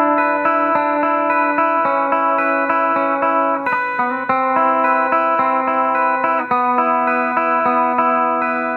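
Electric guitar on its P90 pickup alone (selector position 1) playing a short passage: held, ringing notes with picked notes changing pitch over them, fading slightly near the end.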